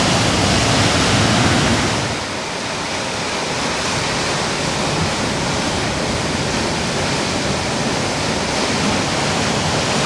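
Ocean surf: a steady rush of waves breaking and washing, fuller and deeper for the first two seconds, then a little quieter.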